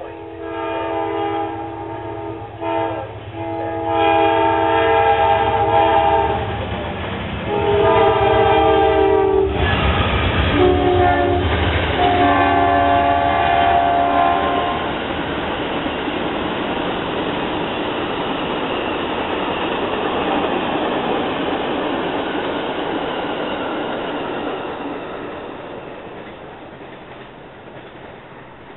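Amtrak passenger train's locomotive horn sounding a series of long blasts with one short one. Its chord drops in pitch about ten seconds in as the locomotive goes by. Then comes the steady rumble of the passenger cars rolling past, fading away near the end.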